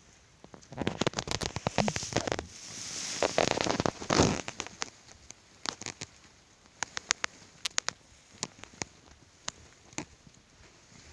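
Crackling and rustling of straw bedding and contact noise close to the microphone, busiest in the first four seconds with a breathy rush of noise about three to four seconds in, then scattered single clicks.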